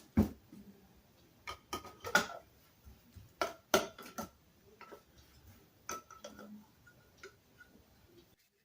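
Irregular metallic clinks and knocks, about ten in all, some with a short ringing note, as metal tool parts are set down and tapped. The sound cuts off abruptly near the end.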